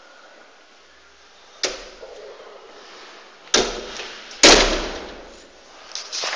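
Three sharp impacts, the last the loudest, each fading away over about a second.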